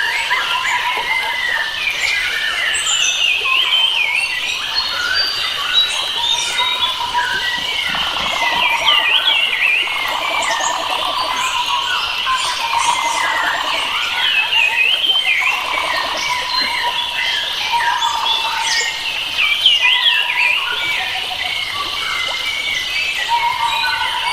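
A dense chorus of many wild forest birds singing and chirping, with overlapping warbles and short calls throughout and rapid trills from about 8 to 16 seconds in, over a steady background hiss.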